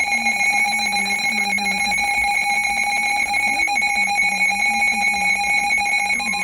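Weather radio receiver's alert alarm: a loud, buzzy electronic beep at one steady pitch, pulsing rapidly without a break. It is the signal that a weather warning is coming in.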